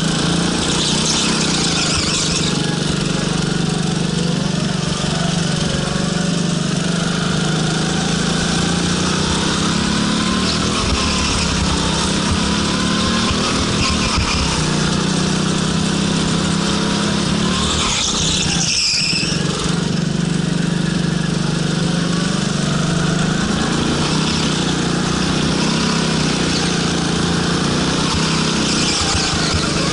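Go-kart's small engine running hard just behind the driver, its pitch rising and falling over and over as the kart accelerates out of corners and lifts off into them. The engine note briefly drops away about two-thirds of the way through.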